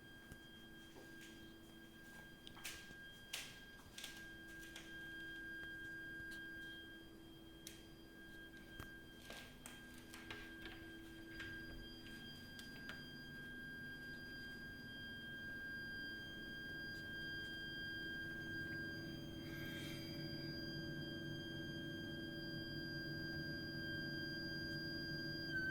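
Heating system's heat interface unit (HIU) and pipework giving off a continuous high-pitched shrieking whistle: one steady shrill note with fainter higher overtones over a lower hum, growing slowly louder, with a few faint clicks in the first half. It is an abnormal plumbing noise fault in the heating system.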